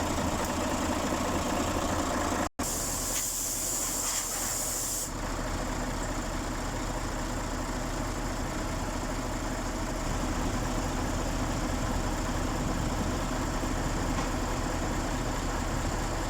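Mercedes-Benz Actros truck diesel engine idling steadily on its newly replaced fuel pump. The sound cuts out for an instant about two and a half seconds in, and a hiss then runs over the idle for about two and a half seconds before stopping.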